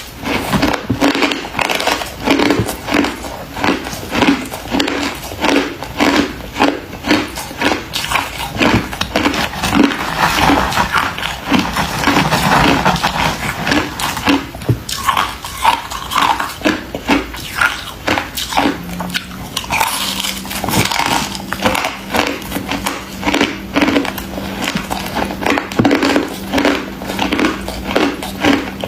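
Close-up chewing and biting of crunchy freezer frost ice: loud, rhythmic crunches about twice a second. A faint steady low hum joins about two-thirds of the way through.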